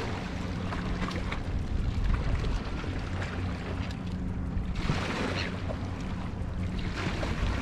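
Steady low drone of a motorboat engine out on the water, with wind buffeting the microphone.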